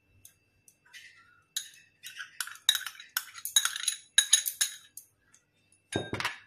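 A metal spoon scraping and tapping against a small glass bowl in a quick run of ringing clinks, then the glass bowl set down with a single heavier knock near the end.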